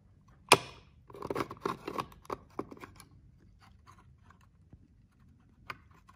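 Plastic remote-control case being fitted onto a metal wall-mount bracket: a sharp click about half a second in, then a couple of seconds of scraping and clattering as the case slides against the bracket and wall, with scattered light clicks and one more click near the end.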